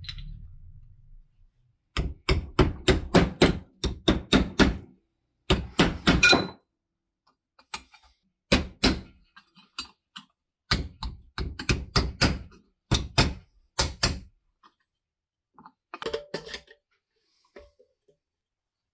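Sharp knocks of hand-tool work in a wood workshop, coming in quick runs of several strikes at about four a second with short pauses between; a few fainter knocks near the end.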